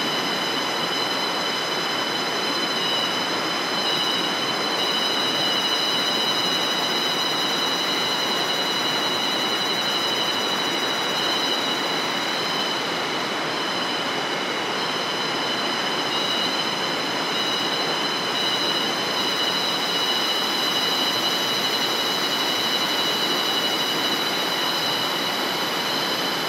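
Steady drone of a tropical forest insect chorus: several unbroken high-pitched tones held over an even rushing hiss.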